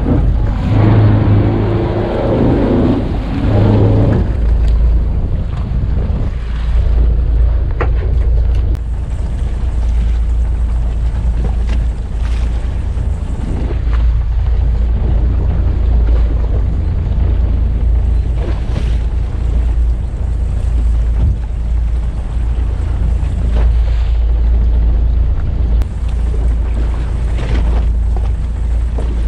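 Wind buffeting the microphone on an open fishing boat, with choppy water sloshing against the hull and a steady low rumble. There are a few light knocks now and then.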